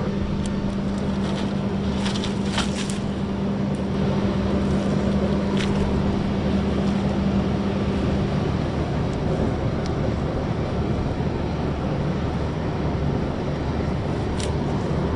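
An engine running steadily, with a steady hum that stops about eight seconds in.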